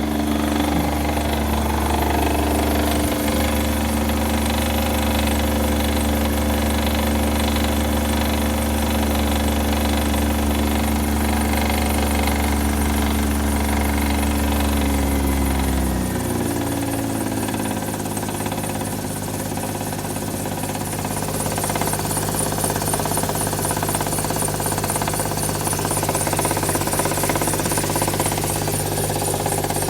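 Hyundai car engine idling with a fast, even knock. About halfway through, the idle speed drops and settles lower.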